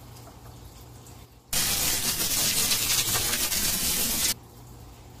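Edited-in sound effect: a loud burst of hissing, rushing noise about three seconds long that cuts in and cuts off abruptly.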